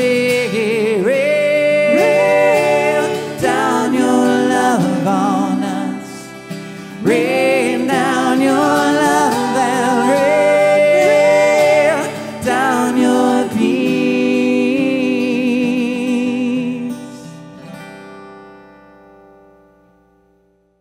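Live worship song with a male lead voice singing over acoustic guitar and bass guitar, the last phrases ending with held notes; the music then fades out to silence near the end.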